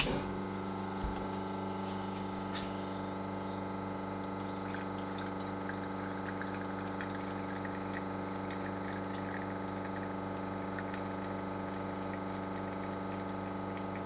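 Rotary pump of a La Pavoni espresso machine switching on sharply and running with a steady, even hum while a shot pulls, with faint spitting of coffee from a naked portafilter into the glass.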